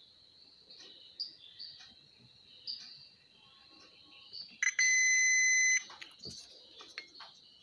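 Digital multimeter's continuity buzzer giving one steady high beep lasting about a second, a little over halfway in, as the test probes touch two points on an amplifier board: the beep signals a short or near-zero resistance between them, here across a suspected shorted output transistor.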